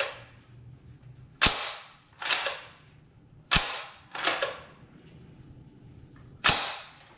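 The bolt of a Browning BAR Mark 3 semi-automatic .308 rifle is worked back and forth by hand: three sharp metallic clacks, the first two each followed less than a second later by a softer one. It is a function check after reassembly, making sure the bolt locks open.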